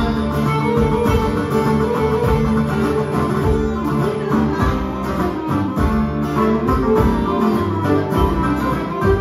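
Live Greek folk band playing an instrumental dance tune: laouto and acoustic guitars strumming a steady rhythm under the melody.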